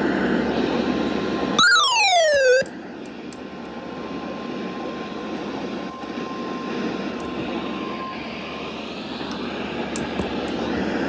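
Heavy static hiss from a weather-radio receiver on a weak NOAA Weather Radio signal. About one and a half seconds in, a loud whistle falls steeply in pitch for about a second. The hiss is quieter after it, with a faint steady tone underneath.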